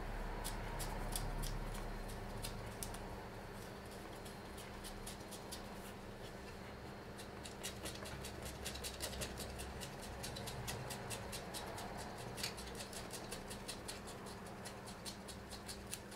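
Rapid, irregular light clicking of 3D-printed plastic parts as the sight's adjustment wheel is turned by hand, threading the mounting part through its hole. The clicks grow denser about halfway through.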